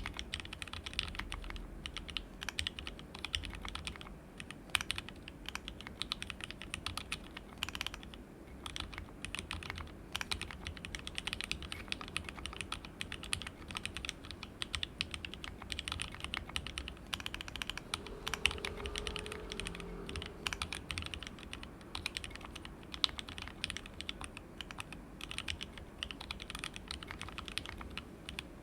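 Steady, fast typing on a mechanical keyboard: dense, irregular key clicks from lubed and filmed 43 Studio Toy switches soldered plateless on a WT60-D Weirdflex PCB, with ABS Cherry-profile keycaps in an NPKC resin case.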